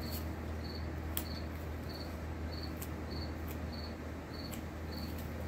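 A cricket chirping steadily, a short high chirp about every 0.6 seconds, over a low steady hum, with a few faint clicks.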